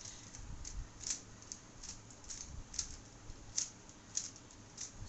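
3x3 Rubik's speedcube being scrambled by hand: a dozen or so quick, irregularly spaced plastic clicks as its layers are turned.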